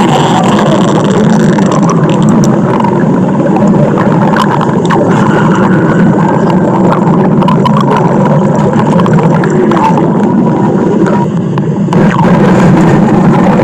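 Loud, continuous stomach growling: a low rumble with gurgling running through it, thinning out briefly just after eleven seconds in before carrying on.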